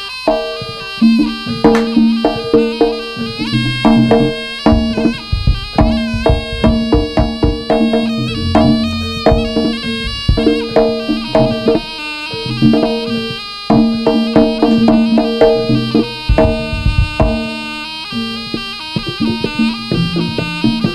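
Jaranan ensemble playing live: a reedy slompret (shawm) melody over quick, driving drum strokes.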